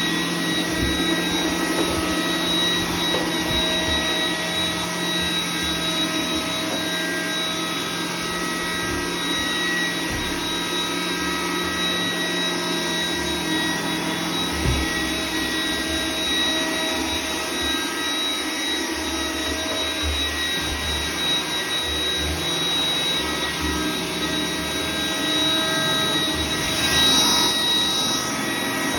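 iRobot Roomba 980 robot vacuum cleaning: a steady motor and fan noise with a high, even whine over an uneven low rumble. It swells briefly louder near the end.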